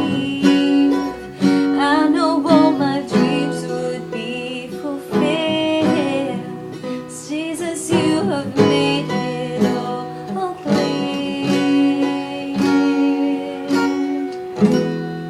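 Acoustic guitar playing held chords with a voice singing over it, the voice wavering and gliding between notes.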